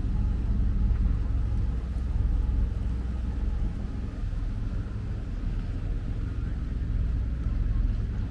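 A tour boat's motor running steadily, a low rumble with water and wind noise over it, as the boat cruises on the river.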